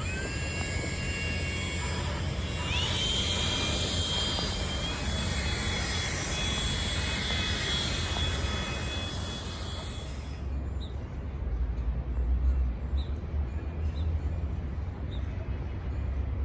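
Train running with a steady rumble and high, steady whining tones that rise at the start and stop about ten seconds in; a low rumble with faint regular ticks carries on after.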